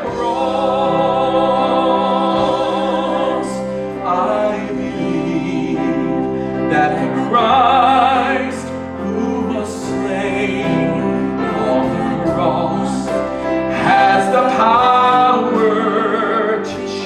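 Worship music: a singer holding long notes with vibrato over sustained instrumental accompaniment.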